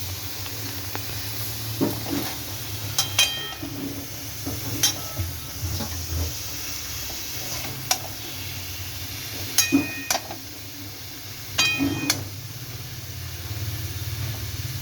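A metal spoon scraping and clinking against a cooking pan while the dish is stirred, several of the knocks ringing briefly, over a steady hum and sizzling hiss.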